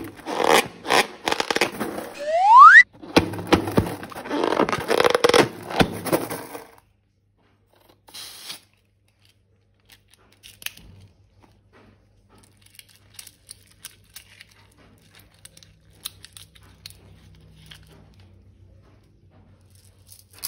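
Slime being worked out of a rubber balloon: crackling and squishing with many small clicks, and a loud rising squeal of stretched balloon rubber between about two and three seconds in. After about seven seconds only faint scattered clicks remain.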